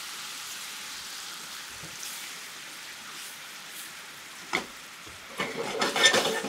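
Balsamic teriyaki sauce bubbling and sizzling hard over high heat in a frying pan around pork-wrapped rice balls, reducing to a glaze. Near the end a silicone spatula scrapes and knocks in the pan as the rice balls are moved through the sauce, louder than the sizzle.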